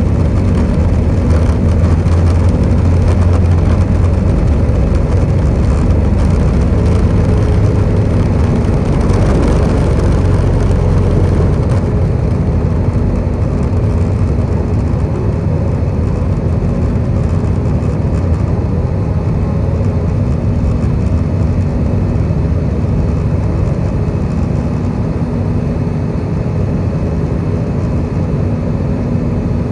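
Airbus A320 takeoff heard from the cabin: jet engines at takeoff thrust with a steady hum over a heavy runway rumble. About twelve seconds in, the rumble and hiss drop away as the wheels leave the ground, leaving steady engine and airflow noise in the climb.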